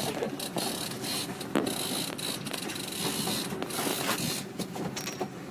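Fishing reel being cranked, a running mechanical clicking and whirring as a line with fish on it is reeled in.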